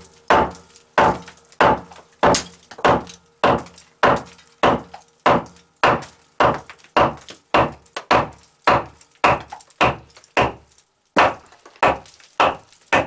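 A hammer driving nails into wooden beams: steady, repeated blows, about one and a half a second, with a short pause near the end.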